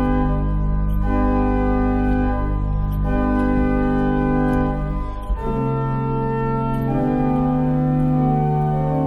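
Church pipe organ playing slow sustained chords, with a deep pedal bass note at 16-foot pitch, an octave below the manuals, held underneath. The chords change every second or two, with a short break about five seconds in.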